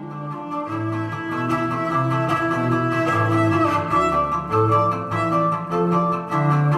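Cello music: a bowed cello playing a passage of low notes that change about every half second, starting just as a different piece ends.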